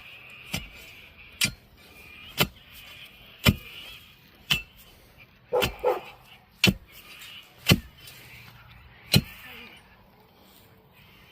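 Axe chopping wood: sharp strikes about once a second, eight in all, with a dog barking twice about halfway through.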